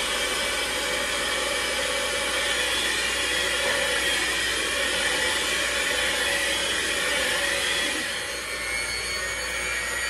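Handheld electric mixer running steadily, its beaters whirring through waffle batter in a bowl. The motor's whine shifts a little about eight seconds in.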